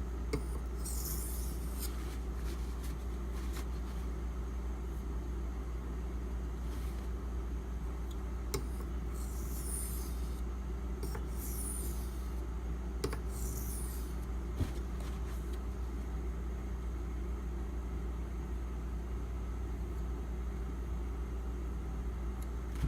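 Steel knife blade (Kershaw Crown, 8Cr13MoV) drawn across an Imanishi 1k/6k combo water stone in a few short, separate scraping strokes, mostly between about nine and fifteen seconds in, with a few faint clicks. A steady low hum runs underneath, and the later part holds only that hum.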